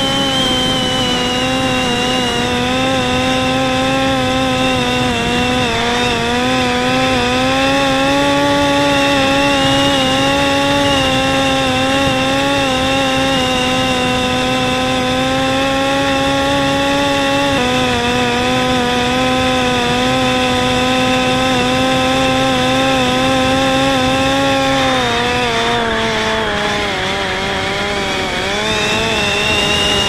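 Parrot Disco drone's electric motor and rear pusher propeller buzzing steadily in flight. The pitch steps down past the middle as power is cut back, dips lower again around 25 seconds, and climbs back near the end.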